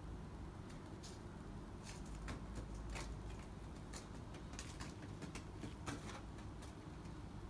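Kittens scampering among dry leaves on pavement and batting at a small balloon: scattered light taps and leaf rustles, irregular and thickest in the middle, over a steady low rumble.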